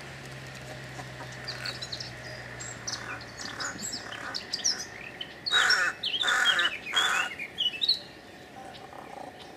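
Rook calling: three loud caws about 0.7 s apart, a little past the middle, over quieter bird chirps.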